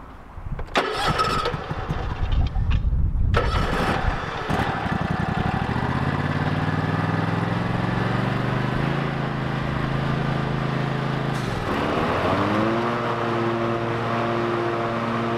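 Toro TimeCutter MyRide zero-turn mower engine cranking and starting about a second in, then speeding up as the throttle is opened. Near the end the engine pitch dips briefly and recovers as the 54-inch cutting deck's blades are engaged, and the deck runs steadily with no rattling.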